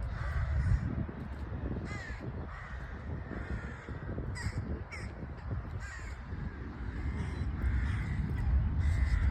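Birds calling: a string of short calls about a second apart, over a steady low rumble.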